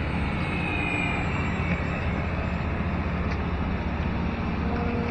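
Distant whine of an FMS 1700mm Tigercat's twin electric motors and propellers as the RC plane flies overhead, its pitch falling slightly in the first second or two, over a steady rushing background.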